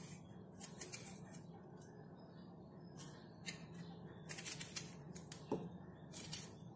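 Faint, scattered clicks and taps of a knife cutting a tomato held in the hand, with pieces dropping into a steel mixer-grinder jar.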